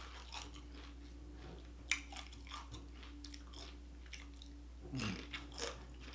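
Close-up chewing of crunchy tortilla chips, with a few sharp crunches, the loudest about two seconds in and again around five seconds in.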